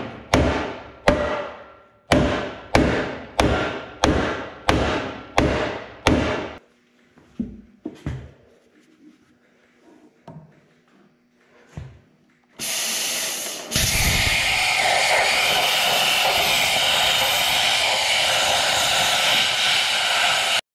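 Hammer blows on the steel dozer blade, knocking out a dent, about two a second and stopping about six seconds in. After a pause with a few light clicks, a plasma cutter starts about twelve and a half seconds in: a brief rush of air, then the louder steady hiss of the cutting arc.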